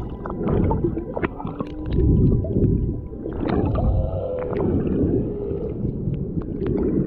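Humpback whale vocalizing underwater: low moans and short gliding tones, one longer tone about halfway through, over dense low noise with scattered clicks.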